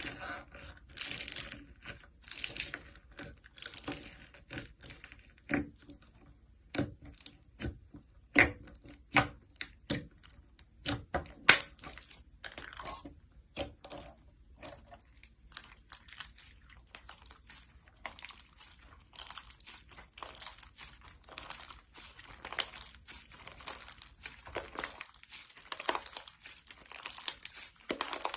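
Slime being squeezed and poked, making irregular sticky crackles and pops, a few of them louder.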